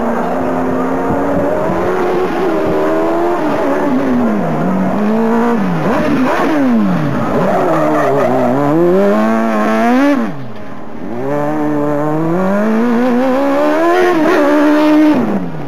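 Open-wheel single-seater formula car's engine revving up and down over and over as it accelerates and slows between cones, its pitch climbing and falling again and again. It eases off briefly just after ten seconds, then builds again before cutting off suddenly near the end.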